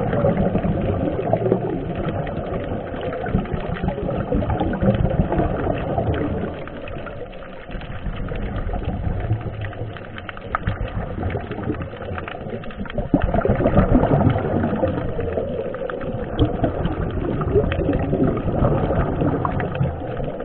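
Scuba divers' regulator bubbles heard underwater: a dense, crackling gurgle over a muffled low rumble, swelling and fading in surges.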